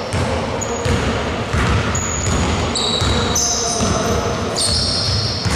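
A basketball dribbled on a wooden gym floor during play, echoing in a large hall. High, short squeaks come and go over it.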